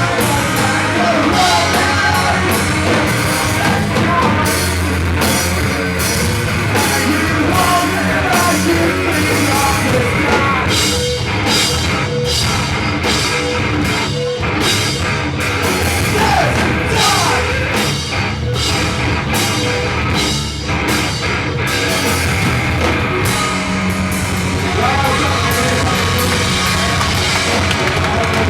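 Pop-punk band playing live: distorted guitars and a drum kit, with sung vocals near the start and end. Through the middle, the band hits a run of short, punched accents with brief gaps between them.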